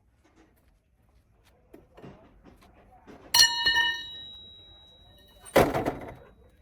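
A metal object struck once, ringing with a clear tone that dies away over about two seconds, then a heavy thud near the end.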